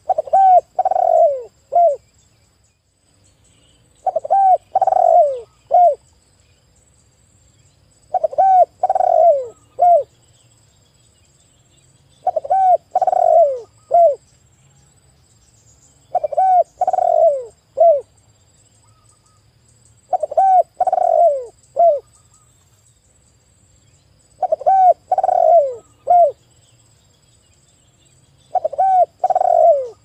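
Spotted dove cooing: a short run of coos ending in a brief clipped final note, repeated evenly about every four seconds, eight phrases in all.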